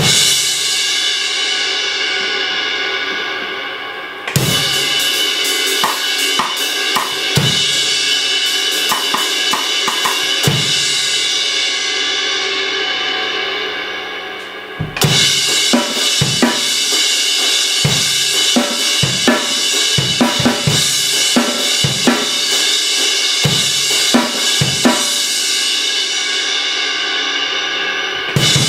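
Zildjian 18-inch K Dark Thin Crash cymbal struck once and left to ring out for about four seconds, then crashed over drum kit grooves with bass drum and snare. The wash fades around the middle, and a fresh crash about halfway through starts another stretch of kit playing.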